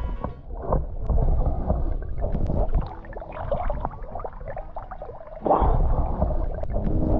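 Seawater sloshing and gurgling around a camera dipped at the surface and underwater beside a yacht's hull, muffled rumble with bubbly crackles. It surges louder about five and a half seconds in.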